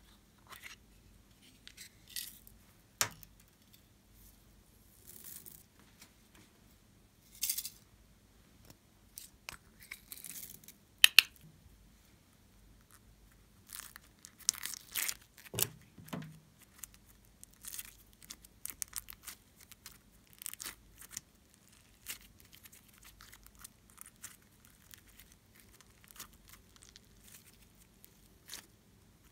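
Slime and small plastic pieces handled close to the microphone: scattered sharp clicks, loudest as a pair about 11 seconds in. From about 14 seconds in come denser runs of crackling and sticky popping as pink foam-bead slime is pulled out of a plastic mold and worked between the fingers.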